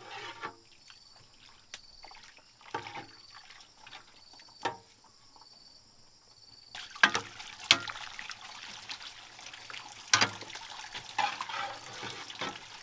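A metal ladle stirring chicken gizzards in boiling water in a large metal pan: liquid sloshing with the ladle clinking against the pan. It starts with a few scattered clinks, then turns into busier stirring about seven seconds in, with several sharp clanks.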